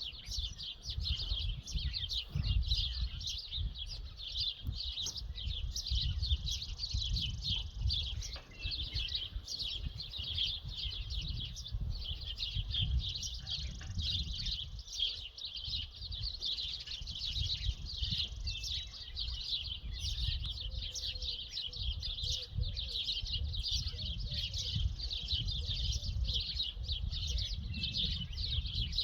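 A dense chorus of many small birds chirping without pause, over a steady low rumble.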